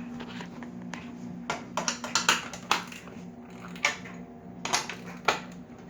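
Sharp, irregular metallic clicks and taps, in small clusters, from a 1/2-inch speed wrench loosening the nut on a cross-member carriage bolt, over a steady low hum.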